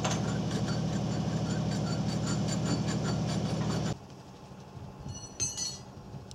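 Heavy truck's diesel engine running close by, a steady low drone with metallic rattling and clicking over it, cutting off abruptly about four seconds in to a much quieter background. A brief high squeak follows about a second later.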